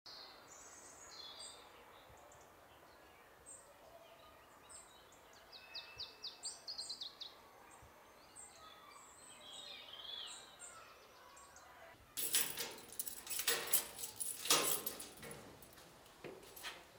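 Small birds chirping and calling, with a quick run of repeated high notes about six to seven seconds in. About twelve seconds in, a loud rattling clatter takes over for several seconds.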